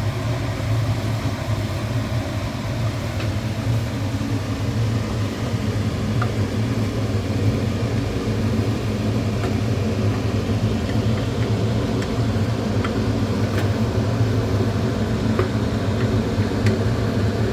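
A steady low hum from kitchen appliances while a pot cooks, with a few faint light ticks scattered through it.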